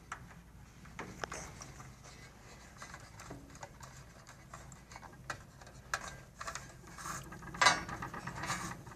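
Irregular light clicks and scraping of a wire being pushed a little at a time up a plastic channel inside an infrared barrier tower, with a louder rustle near the end.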